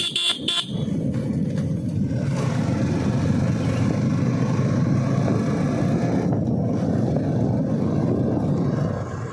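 Two or three quick horn beeps right at the start, then the steady rush of wind over the phone's microphone and the running of a motorcycle being ridden, with the rush getting brighter for a few seconds in the middle.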